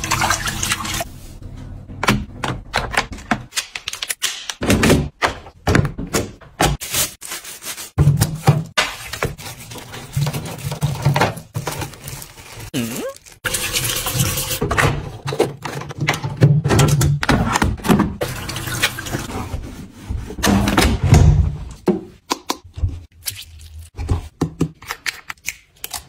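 Tap water running and splashing over plastic parts being rinsed by hand in a sink, with many clicks and knocks as the parts are handled and set down.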